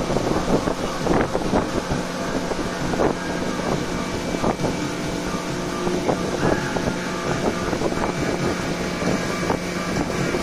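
Motorboat underway at speed: the engine's steady hum under heavy wind noise on the microphone, with irregular knocks and splashes of the hull on the water.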